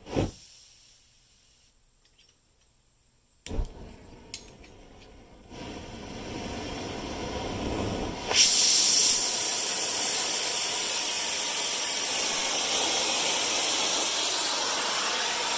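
Handheld gas torch: two knocks as it is handled, then gas hissing from the opened valve and growing louder. It lights suddenly about eight seconds in and burns with a steady loud hiss, heating the metal around a seized broken bolt.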